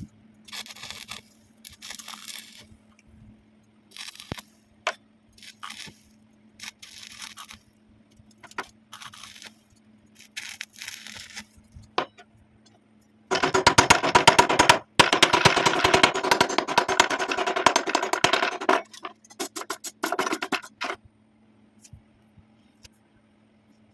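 Short scraping strokes on metal with a few sharp clicks, then a loud, dense crackling, typical of a welding arc, for about six seconds. It breaks into short stop-start bursts and stops a few seconds before the end. A faint steady hum runs underneath.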